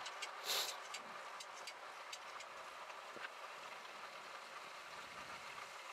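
Faint, steady flight-deck background noise of a Boeing 737-800 in descent: an even hiss of air with a few faint ticks, and a brief louder swell of hiss about half a second in.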